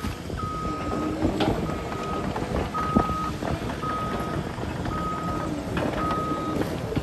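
A vehicle's reversing alarm beeping at a steady single pitch, six beeps about a second apart.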